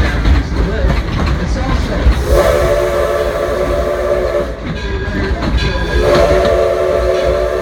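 The Edison steam locomotive's whistle blowing two long blasts, the first starting about two seconds in and the second near the end, over the low rumble of the moving train.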